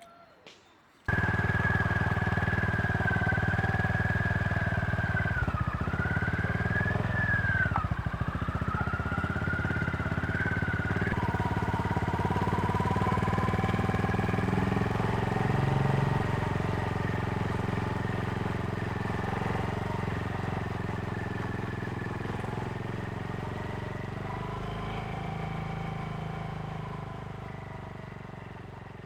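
Honda GB350's single-cylinder engine running under way, with a steady wavering whine above it. It cuts in suddenly about a second in and fades out over the last few seconds.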